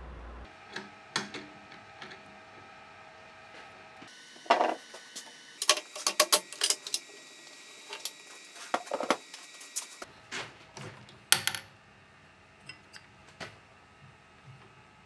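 Scattered clicks and knocks, as of objects or tools being handled, over a faint steady hum. The loudest knocks come in a cluster near the middle and once more a little later.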